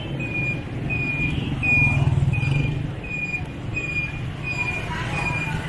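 Street traffic: motorcycle engines running, one louder as it passes close about two seconds in. Through it a short, high electronic beep repeats steadily, about three beeps every two seconds.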